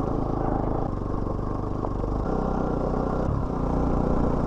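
Motorcycle engine running at low speed, its pitch stepping up and down with the throttle, with some clatter from the bike.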